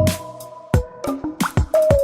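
Electronic background music: a beat of sharp percussive hits under held synth notes.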